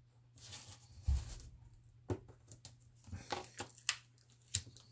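A razor blade cutting open a card-and-plastic parts package: a soft scraping rustle for about a second, then several sharp clicks and taps as the package is handled.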